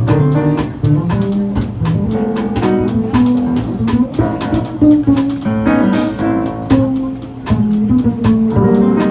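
A small jazz band playing a tune, with a moving bass line under other pitched instruments and frequent drum or cymbal hits.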